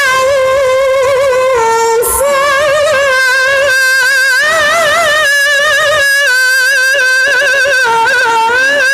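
A woman reciting the Qur'an in the melodic mujawwad style of tilawah into a microphone. She holds long notes decorated with quick, wavering turns, with a brief break about two seconds in.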